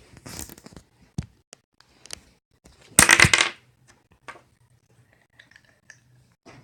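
Scattered clicks and taps of small hard objects being handled, with one brief loud clatter about three seconds in.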